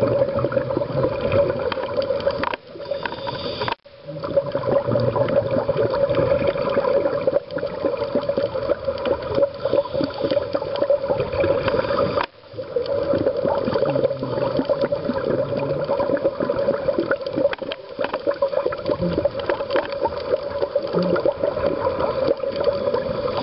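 Steady underwater water noise picked up by a dive camera, with a constant band of hum and gaps where the footage cuts, about two and a half seconds and twelve seconds in.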